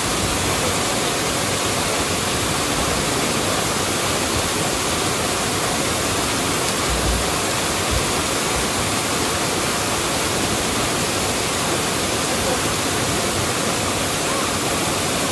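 Small waterfall below a dam: a steady, loud rush of falling water, with no change in its sound.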